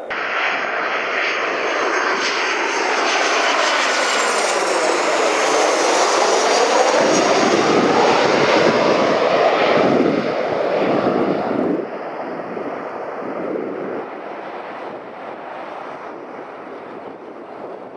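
Jet engines of a Boeing 737 airliner passing low overhead on final approach: a loud, steady jet whoosh with a sweeping, phasing tone as it goes over. About twelve seconds in it drops to a quieter, more distant rumble.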